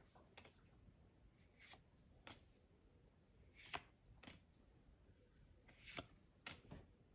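Pokémon trading cards being handled and slid past one another as a freshly opened pack is gone through: faint, short swishes and taps, about one a second, the clearest near the middle and about six seconds in.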